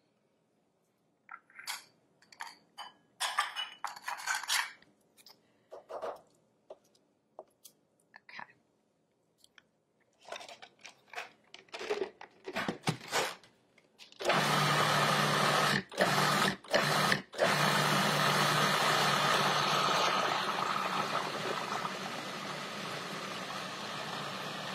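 Plastic clicks and knocks as the lid and feed tube of a Cuisinart food processor are fitted. Then, a little over halfway through, the motor starts and runs steadily, blending guacamole until it is creamy. It cuts out twice for a moment just after starting, then keeps running.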